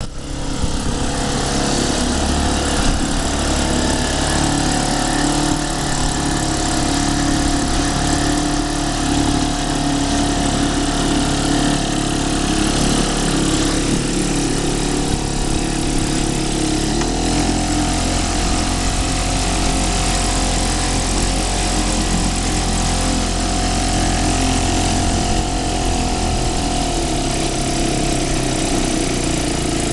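1946 Elgin 2-1/2 hp Model 401 two-stroke outboard motor running steadily in a test barrel. It is freshly overhauled and not yet tuned. Its note shifts a little a bit past halfway through.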